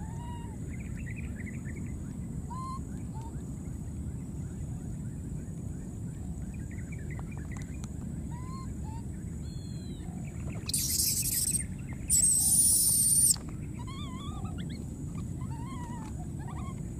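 Baby monkeys giving short, soft arched coo calls on and off, with two loud shrill screeches, the second longer, about two-thirds of the way in, over a steady low background noise.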